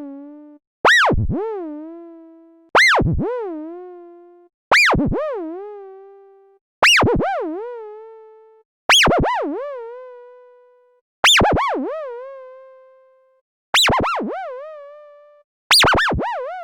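Cartoon boing sound effect played eight times, about every two seconds. Each one swoops down sharply in pitch, wobbles back up and settles on a fading tone, and each lands a little higher than the one before.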